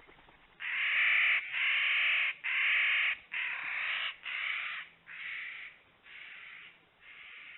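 A bird's harsh, crow-like calls repeated about once a second, about eight in a row, the first few loudest and the rest fading.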